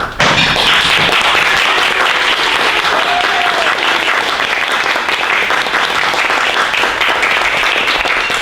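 Audience applauding, the clapping starting suddenly and keeping up steadily.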